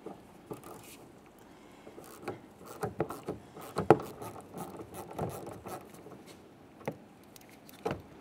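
Ratchet and 10 mm socket loosening the bolt behind a truck door's inside handle: faint, irregular clicks and short scrapes of the tool on the bolt and the plastic handle recess, the loudest click about four seconds in.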